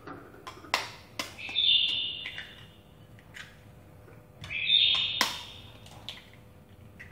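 Sharp taps of a knife blade cracking eggshells over a bowl, a few clicks in all, with two bird calls of about a second each, one about two seconds in and the louder one about five seconds in.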